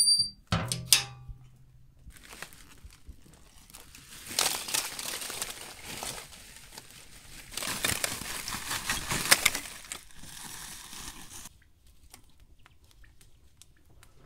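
Steel oven door scraping with a short metallic squeal and ringing shut with a clank. Then, from about two seconds in, a long rustling crunch with crackles comes in two swells and stops suddenly near the end: lumps of charcoal being handled on bricks.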